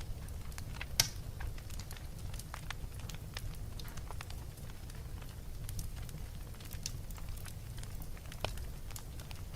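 Fire in a fireplace crackling over a steady low rumble, with scattered small pops and one sharp, loud pop about a second in.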